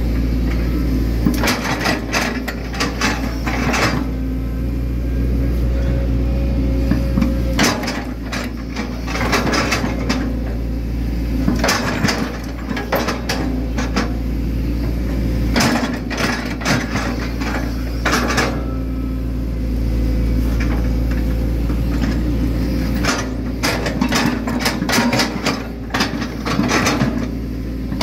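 Hitachi Zaxis 110 excavator's diesel engine running steadily, its note shifting every few seconds as the hydraulics take load, while the steel bucket scrapes and knocks on wet soil and clods in several bouts of clatter.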